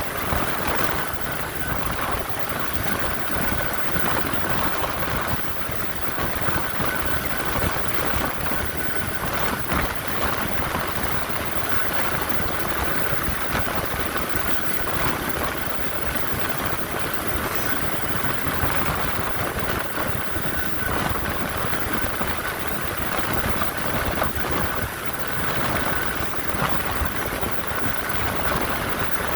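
Helicopter running steadily: a constant high whine over a dense, even low rumble.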